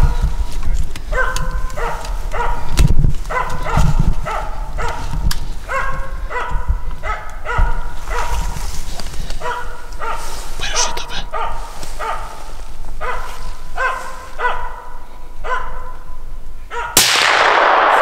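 Bird dog barking in a steady series, about two barks a second: the standing bark that holds a capercaillie treed. Near the end comes a single loud gunshot, with a long echoing decay.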